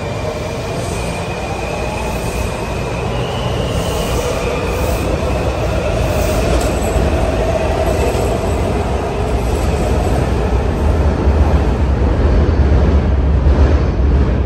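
A Washington Metro Breda/Alstom 3000-series train departing an underground station and accelerating past. A whine rises in pitch in the first half, and the rumble of the wheels on the rails builds and is loudest near the end as the last cars pass.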